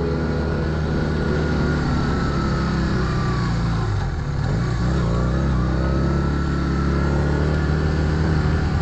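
Small motorbike engine running while riding along a dirt track. The revs drop briefly about four seconds in and then pick up again.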